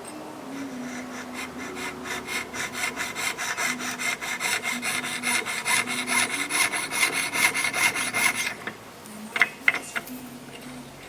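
Jeweller's saw (fine coping saw) cutting through an 18K gold sheet by hand, in quick, even back-and-forth strokes that stop near the end, followed by a few sharp clicks.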